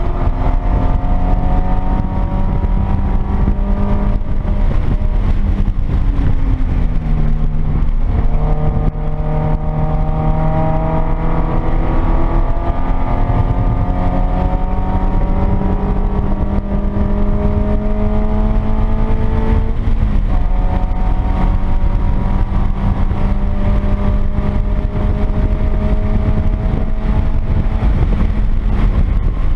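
2013 Subaru BRZ's 2.0-litre flat-four, breathing through an aftermarket catted unequal-length header and resonated exhaust, heard from inside the cabin under load on track. Its note climbs slowly and drops twice, about six seconds in and around twenty seconds, with steady tyre and road noise underneath.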